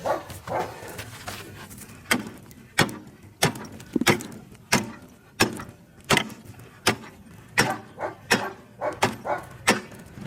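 Sharp knocks repeating at a steady pace, about three every two seconds.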